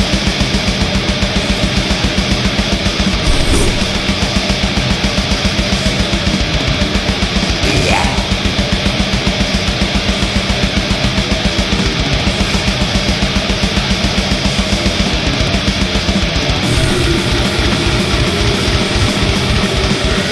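Heavy metal music with a fast, even beat. The part changes about sixteen seconds in.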